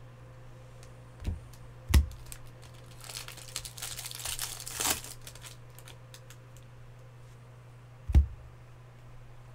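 A foil trading-card pack crinkling as it is torn open, for about two seconds in the middle. Dull thumps come just before it and again near the end.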